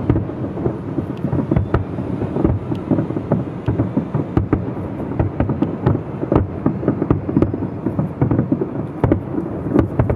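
Dense barrage of aerial firework shells bursting, the booms running together into a continuous rumble with many sharp cracks.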